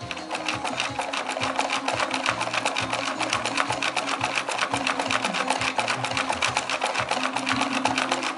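Hand-cranked wooden scale model of a threshing machine running, its mechanism clattering in a fast, even rattle that starts abruptly as it is cranked.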